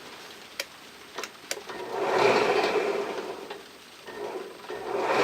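A few light knocks, then a power drill running in two short spells, about a second and a half each, as it starts biting into the wooden handle.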